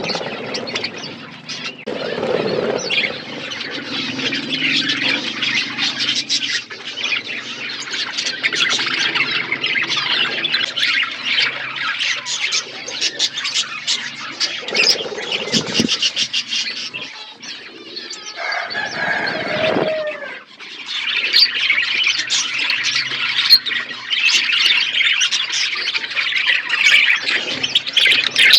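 A flock of budgerigars chattering and warbling in an aviary: dense, rapid chirping that keeps up throughout, with a lower, longer gliding call about two-thirds of the way in.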